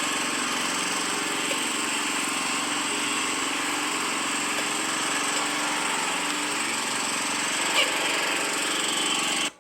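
A gas-engine pressure washer running steadily, a small engine hum under a hiss, with one brief click near the end before the sound cuts off suddenly.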